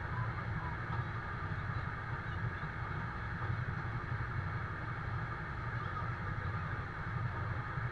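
Iveco fire engine's diesel engine running steadily at a constant speed, driving the pump that feeds the hose and sprinkler.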